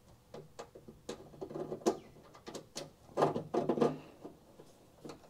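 Scattered light clicks and scrapes of a Phillips screwdriver and self-tapping screw against the 3D-printed plastic rain light housing and the inside of the tailgate as the screw is lined up with its hole. A denser run of clicks comes about three seconds in.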